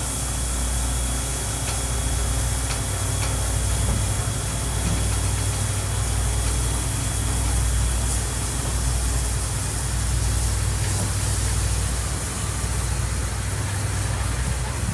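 Japanese Class C58 steam locomotive C58 239 pulling slowly away from a station. It makes a steady low rumble with hiss.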